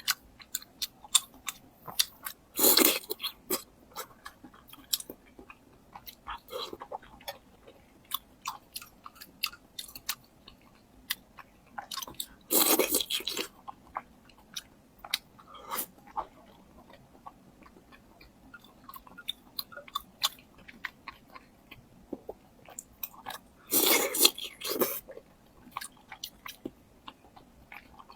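Close-miked eating: a person chewing, with many short wet mouth clicks, and three longer, louder bursts about ten seconds apart.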